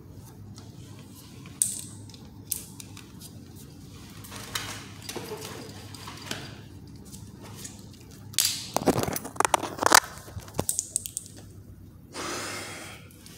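Close handling noises: scattered sharp clicks and rustling, then a loud run of rapid clicks and scraping about nine seconds in, and a rush of noise near the end.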